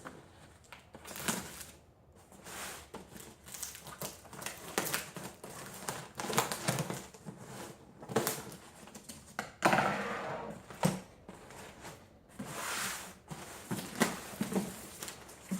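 A cardboard shipping box being opened and unpacked by hand: a string of clicks, knocks and scrapes of cardboard and packing material, with longer rustles about ten and thirteen seconds in.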